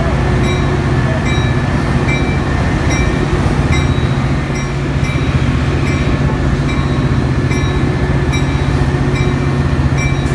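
Metra diesel locomotive 198 running at close range, a steady low engine hum, with a short tone, typical of the locomotive's bell, repeating a bit faster than once a second.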